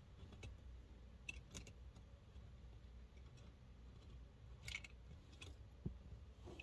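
Near silence with scattered faint clicks and taps of toy tank parts and small screws being handled during disassembly, the brightest cluster of clicks about five seconds in and a soft knock just after.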